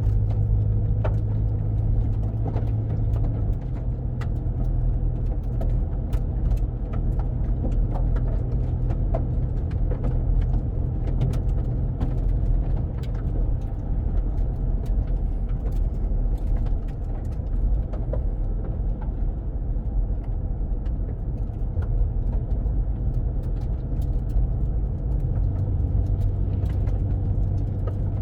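Car driving on an asphalt road: a steady low rumble of engine and tyres, with scattered light ticks. The engine's note shifts a few seconds in and again near the end.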